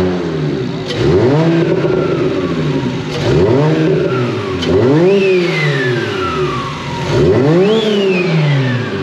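BMW 135i's straight-six, newly rebuilt with a large single turbo, revved hard about four or five times in a row, each time rising in pitch and falling back. After each blip a high whistle slides down in pitch as the turbo spins down.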